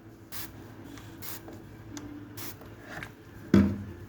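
Three short hissing spritzes from a perfume spray bottle, followed by a louder knock about three and a half seconds in.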